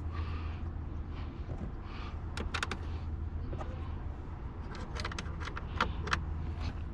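Scattered light metallic clicks and clinks as a car battery's hold-down bracket and its bolts are handled and fitted, with a cluster of clicks about halfway through and more near the end, over a steady low hum.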